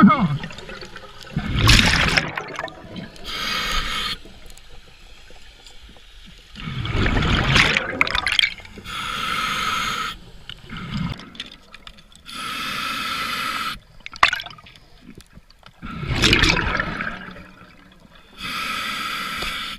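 Open-circuit scuba diver breathing through a regulator underwater: three loud gushes of exhaled bubbles several seconds apart, with steadier hissing inhalations between them.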